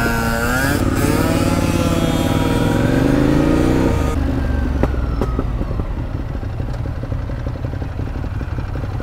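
Ducati Monster 821's L-twin engine, fitted with an SC-Project exhaust, accelerating hard from a standstill, its note rising and held high for about four seconds. It then drops to a low, lumpy twin-cylinder run with scattered crackling pops from the exhaust.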